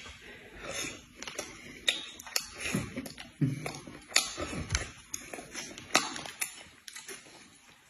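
Two people eating at a table: chopsticks clicking against plates and a noodle cup, with chewing and the slurping of noodles, in an irregular scatter of small taps and mouth sounds.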